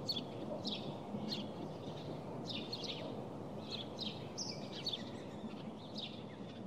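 Small birds chirping outdoors, short high calls repeating every half second or so, over a steady low background noise.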